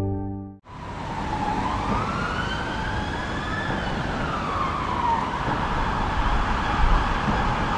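City traffic noise with an emergency-vehicle siren wailing, its pitch rising slowly and then falling back.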